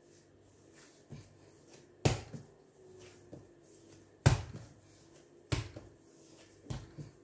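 Bread dough being kneaded by hand on a stone countertop: about six dull thuds of the dough against the counter, the loudest about two and four seconds in.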